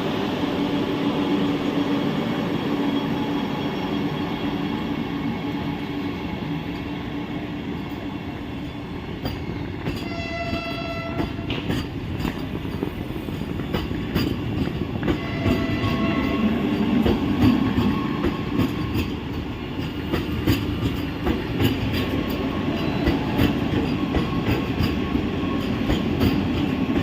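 Vande Bharat Express electric train running with steady rail noise. Its horn sounds once, a single pitched blast of about a second and a half, roughly ten seconds in, with a fainter tone around fifteen seconds. Wheels click over rail joints through the last several seconds.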